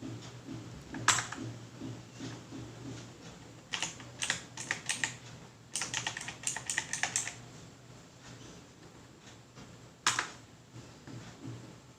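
Keystrokes on the Quantum QHM9800 mechanical keyboard's clicky blue switches: a single sharp press about a second in, two quick runs of typing in the middle, and another lone press near the end.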